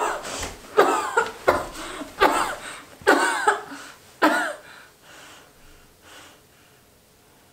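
A woman's acted death throes: repeated strained coughing and choking gasps that grow weaker after about four seconds and fade away as she dies, foam at her mouth.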